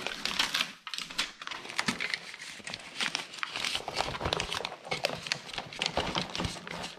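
Flexible aluminium foil duct and foil tape crinkling and crackling as they are handled, with irregular small crackles and rustles.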